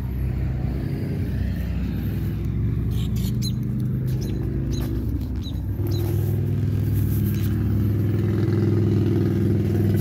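Diesel air heater running with a steady low hum from its combustion fan and exhaust. About six seconds in, the hum grows louder and steadier.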